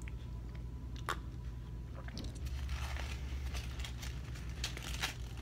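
Eating and drinking mouth sounds close to the microphone: a sip from a foam cup and chewing, with a few sharp clicks and a louder noisy stretch about halfway through. A steady low hum sits underneath.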